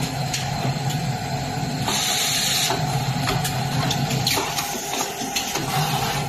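Semi-automatic sanitary napkin packaging machine running: a steady mechanical hum with sharp clicks from its moving parts and a burst of hiss about two seconds in.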